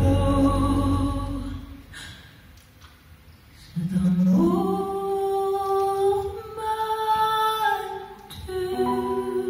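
Live band music dies away over the first couple of seconds; after a brief hush a woman's voice comes in alone, sliding up into a long held note and then moving through several more long sustained sung notes with little accompaniment.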